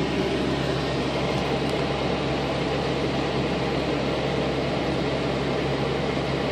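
Automatic car wash running, heard from inside the car's cabin: a steady hiss of water spray and machinery over a constant low hum.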